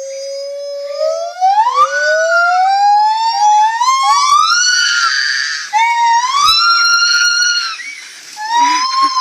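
Lar gibbon calling: a series of loud whooping hoots that slide upward in pitch, each rising note climbing higher, with breathy squealing at the top, then a falling note near the end.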